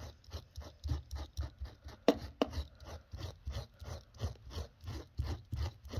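Stanley utility-knife blades scraped back and forth over dried gloss paint in carpet pile, in quick even strokes about five a second, with two sharper clicks about two seconds in. The scraping breaks up the hardened gloss and loosens the carpet fibres.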